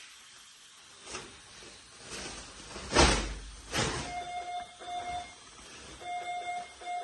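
Medical equipment alarm beeping in pairs of short, steady, mid-pitched beeps from about four seconds in. Before it come a few short bursts of hiss-like noise, the loudest, with a low thump, about three seconds in.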